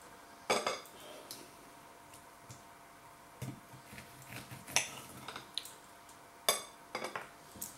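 Metal knife and fork clinking and scraping against a plate while cutting a cooked sausage, with several sharp clinks spread out, the loudest about half a second in and near six and a half seconds.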